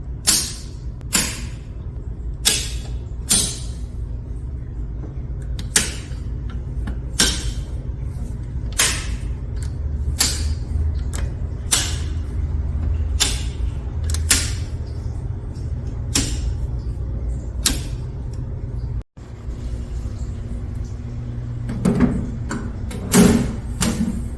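Industrial circuit breakers in an electrical breaker box being switched one at a time: a series of sharp, dry mechanical clicks every second or two, with a quicker cluster of clicks near the end. A steady low hum runs underneath.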